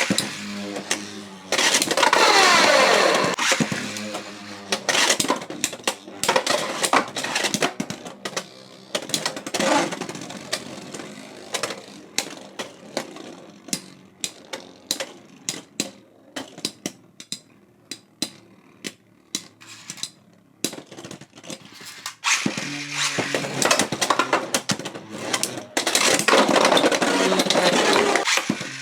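Beyblade X spinning tops launched from ripcord launchers and clashing in a plastic stadium, with many sharp clicking collisions and a whirring spin. A second launch comes about 22 seconds in.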